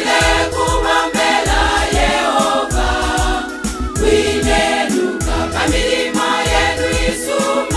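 Gospel choir singing in harmony over a band with bass and a steady beat.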